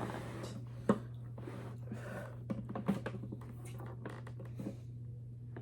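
Clicks and small plastic rattles of a food processor being handled and tried, with a sharp click about a second in; the motor does not run because the bowl is not locked all the way. A low steady hum sits underneath.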